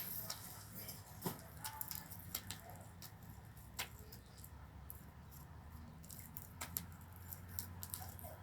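Faint sticky clicks and squelches of glue-and-liquid-soap slime being worked in the hands, coming at irregular moments.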